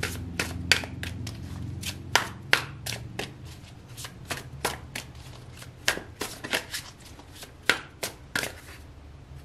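A deck of tarot cards being shuffled by hand: an irregular run of light card slaps and flicks, about three a second.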